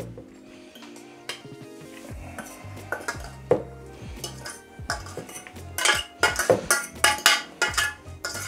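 A metal fork scraping and knocking against the inside of a stainless steel saucepan, scooping food out, with a quick run of louder strokes in the second half. Background music plays underneath.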